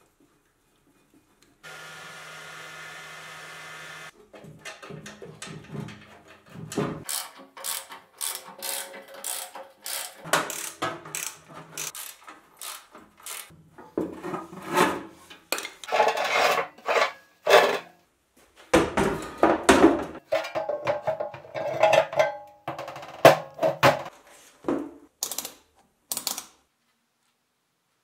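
Hand-tool work on a small electric pump motor's mounting: a short steady whirring noise, then a long run of irregular metal clanks, knocks and scrapes as a wrench loosens the hose fitting and bolts.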